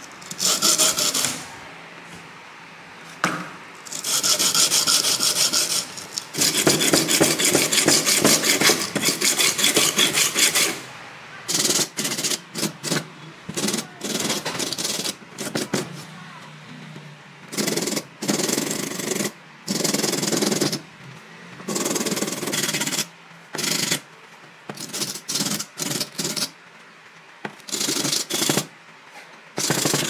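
A PVC box being sanded by hand, its edges rubbed back and forth across a sandpaper block to smooth and square them: a rough scraping in quick strokes. A long run of strokes in the first half gives way to shorter spells broken by pauses.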